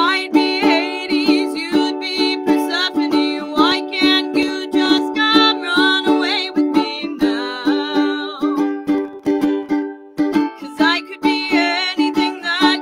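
A young woman singing with her own strummed ukulele accompaniment, in an acoustic version of a pop song.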